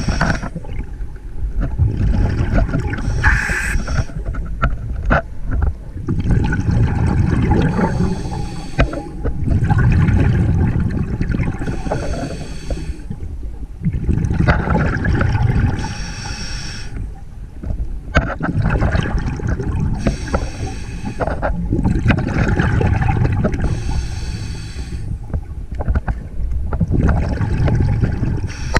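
Scuba diver breathing underwater through a regulator, a pattern that repeats about every four seconds: a short hissing inhale, then a longer rumbling exhale of bubbles.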